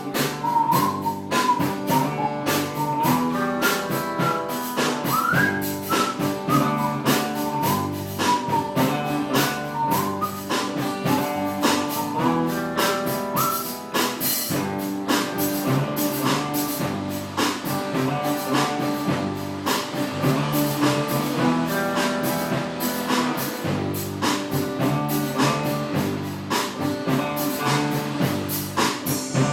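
A live band playing a slow soul song on guitar and drums. A whistled melody rides over the band for roughly the first eight seconds, then the instruments carry on alone.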